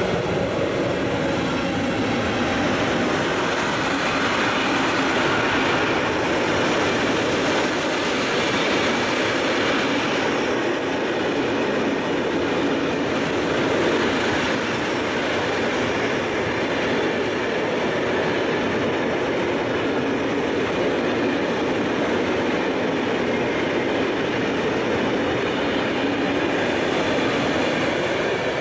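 Long freight train of container wagons passing close by at steady speed, a continuous rumble of wheels running on the rails.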